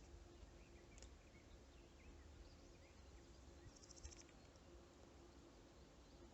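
Near silence: faint outdoor ambience by a pond, with scattered faint high chirps and one short, rapidly pulsed insect trill about four seconds in.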